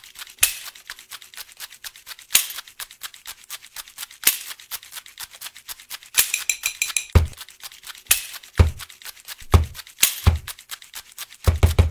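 Instrumental percussion beat built from everyday sounds instead of drum-machine samples: fast, even ticking clicks with a sharp snap about every two seconds. A short rattle comes around the middle, and low thuds join in about seven seconds in.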